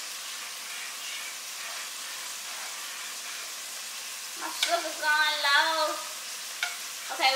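Food sizzling on a gas stove, a steady hiss, while a spoon stirs a pot of sweetened corn. A voice comes in briefly past the middle.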